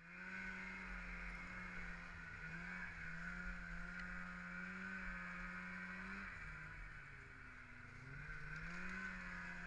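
Polaris snowmobile engine running under way at a steady pitch. The pitch drops about six seconds in and climbs back about two seconds later.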